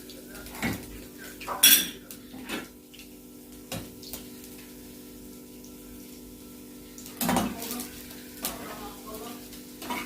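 A metal spoon knocking and clinking against a cooking pot and dish while frying zalabia dough in oil. There are several separate knocks, the loudest about two seconds in and a cluster about seven seconds in, over a steady low hum.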